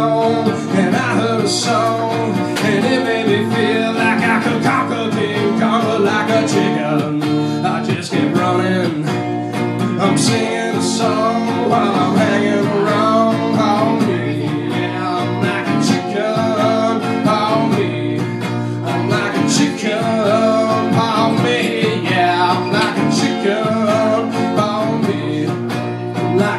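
Hollow-body electric guitar played live: a long instrumental stretch of strummed chords with picked, bending lead lines running without a break.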